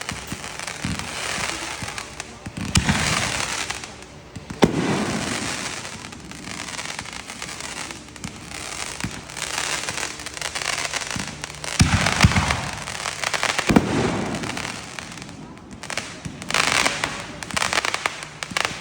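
Fireworks going off: several sharp bangs, the loudest about 3, 5, 12 and 14 seconds in, each trailing off, with crackling in between.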